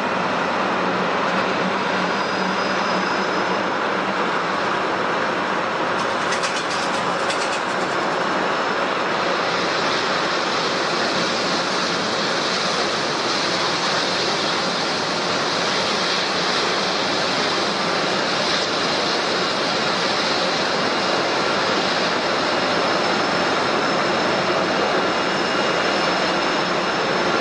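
Airliner jet engines running: a steady, even rushing noise with a faint high whine.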